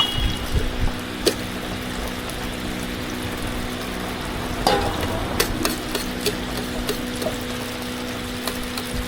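Deep-frying oil bubbling steadily under a constant low hum, with a few clicks and knocks of utensils, most of them bunched about halfway through.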